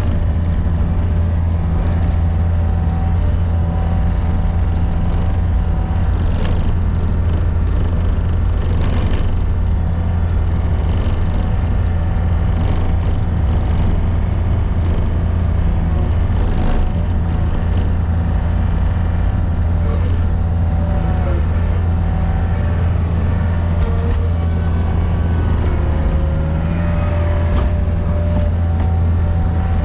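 Diesel engine of a Gehl RT65 tracked skid steer running steadily with a deep, constant drone.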